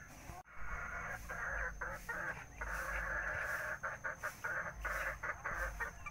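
Chickens clucking in a busy, broken chatter that starts after a brief dropout about half a second in.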